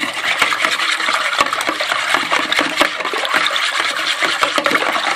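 Wire whisk beating eggs, milk and water together in a plastic bowl by hand: continuous fast sloshing with rapid ticking of the wires against the bowl.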